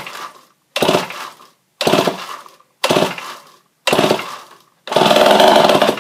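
Homelite 990 gear-drive two-stroke chainsaw, whose compression is very low, being pull-started: the starter rope is yanked about once a second, turning the engine over five times. On the sixth pull the engine fires and runs loudly for about a second on primed fuel, then cuts out.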